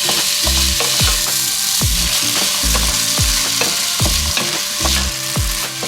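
Washed jasmine rice sizzling in melted margarine in a pot as it is stirred, a steady frying hiss.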